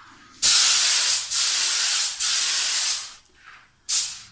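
Compressor-fed paint spray gun hissing as the trigger is pulled: one long burst of about two and a half seconds, then a short burst near the end. The gun is shooting the thinned wall paint out in a stream rather than a fine mist, which the painters take to be simply how this gun works.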